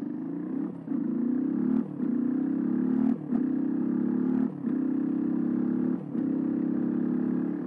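Suzuki DR125's single-cylinder four-stroke engine at full throttle, heard from the rider's seat. The engine note rises steadily, broken by five brief dips in level.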